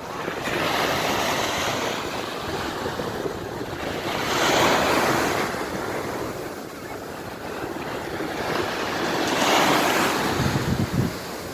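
Sea waves surging and washing in, the rush swelling and fading, loudest about four and nine seconds in.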